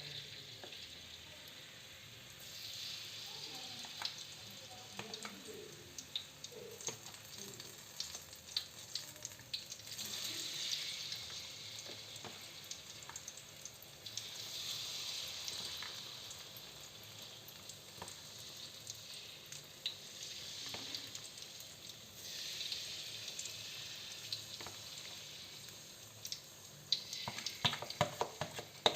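Flour-battered tempeh frying in hot oil: a steady sizzle that swells and fades, with scattered ticks, and a burst of sharp clicks and knocks near the end.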